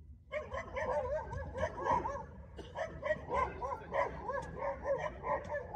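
A dog yipping and whining in a rapid string of short, high cries that rise and fall in pitch, loud and close to the microphone.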